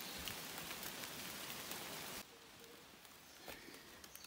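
Heavy rain falling on rainforest foliage, a steady hiss that cuts off suddenly about halfway through, leaving a much quieter background with a few faint ticks.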